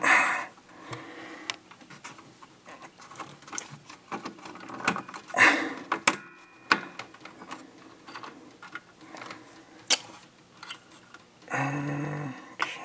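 Wire connectors and harnesses being handled and pushed onto a pinball machine's circuit board: scattered clicks and rustling with a few louder handling bursts. Near the end there is a brief low hum-like sound.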